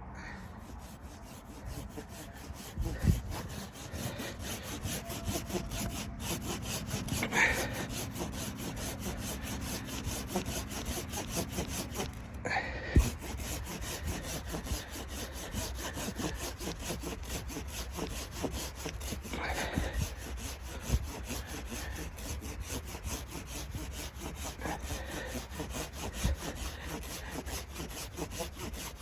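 Hand saw cutting wood in a steady run of back-and-forth rasping strokes, broken by a few louder knocks.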